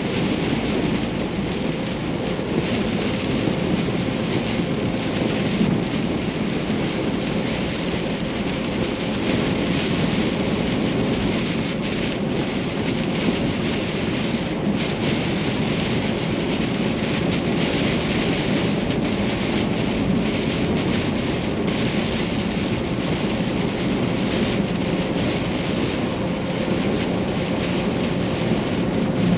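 Heavy rain hitting a moving vehicle, with a steady rush of road and wind noise.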